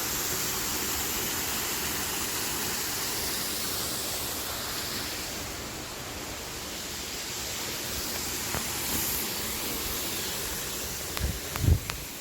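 Waterfall: a steady rush of falling water. There are two or three low thumps near the end.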